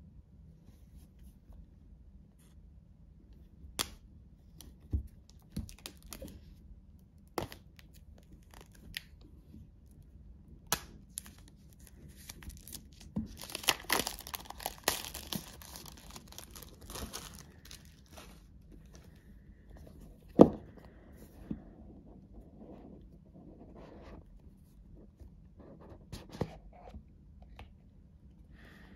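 Clear plastic wrap being torn and peeled off a small cardboard Apple AirPods Pro box, crinkling, with a denser stretch of tearing and crinkling near the middle. Scattered sharp snaps and taps of the wrap and box being handled, the loudest a single sharp click about two-thirds of the way through.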